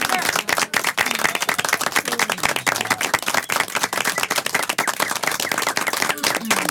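Applause: many hands clapping in quick, dense claps, with a few faint voices underneath.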